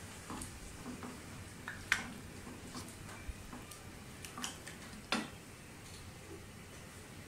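A spatula stirring and turning chicken pieces coated in yogurt in a non-stick pan: scattered soft knocks and scrapes against the pan, the two loudest about two seconds and five seconds in.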